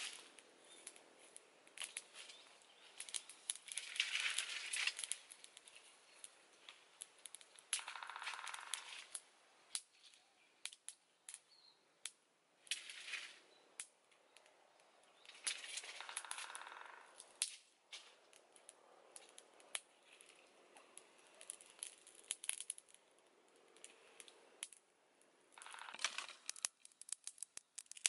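Wood fire under a wok crackling, with sharp irregular pops and snaps. Several times a short rush of hissing noise, each about a second long, rises over the crackle.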